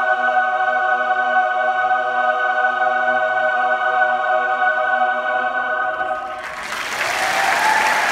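Massed choir of several hundred high-school singers holding one long final chord, which ends about six and a half seconds in as applause breaks out.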